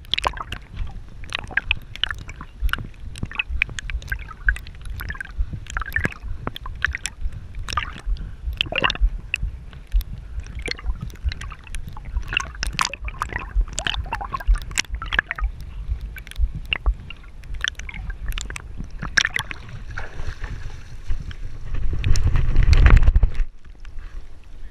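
A swimming dog's paddling stirs water that sloshes and splashes right at the microphone, with many short irregular splashes. Near the end a louder, deeper rumbling stretch cuts off suddenly as the dog comes out of the water.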